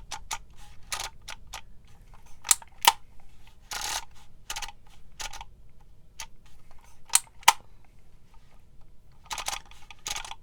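Handheld embossing label maker being worked letter by letter: small clicks as its letter wheel is turned, and sharp clacks as the handle is squeezed to press each letter into the tape. The loudest clacks come about two and a half to three seconds in and again about seven to seven and a half seconds in.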